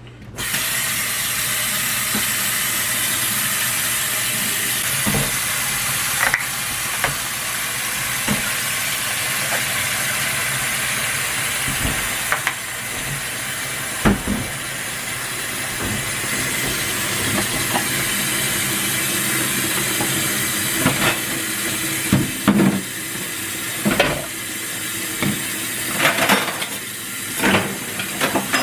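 Kitchen sink tap turned on and running in a steady hiss, with occasional clinks and knocks of dishes being washed, more frequent near the end.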